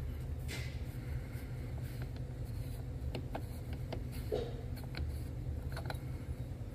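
An aluminium oil catch can's canister being handled and unscrewed by hand, giving a few faint clicks and scrapes over a steady low hum.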